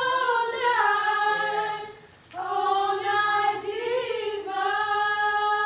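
A small group of girls singing together unaccompanied, holding long notes with a few pitch slides, with a short pause for breath about two seconds in.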